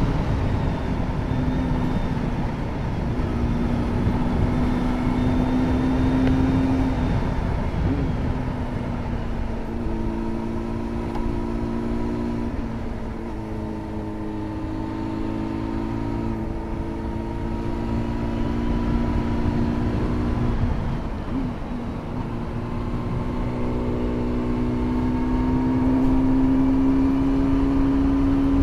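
A road vehicle's engine running at cruising speed under steady low wind and road rumble. The engine note breaks and picks up again twice, about a quarter of the way in and again about three-quarters through, then climbs steadily in pitch near the end.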